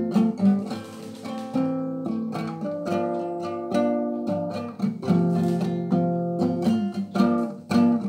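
Acoustic guitar playing an instrumental passage of strummed and picked chords, each chord ringing on between strokes.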